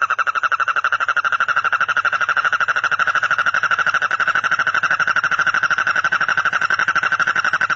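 A frog calling in one long, rapid pulsing trill, steady in pitch and loudness.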